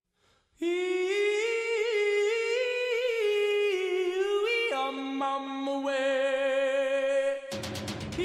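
Wordless humming of a wavering melody as intro music. About halfway through, a second, lower voice holds a steady note under it in harmony, and near the end music with a drum beat comes in.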